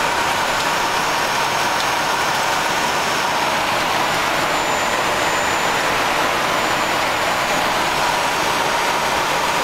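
Steady rushing airflow noise on the flight deck of a Boeing 737-300 in cruise, with a faint steady tone running through it.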